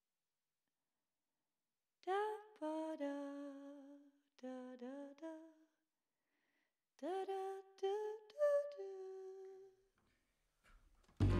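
A lone voice hums a slow, wordless tune in three short phrases separated by pauses, each note sliding up into pitch. Instrumental music comes in right at the end.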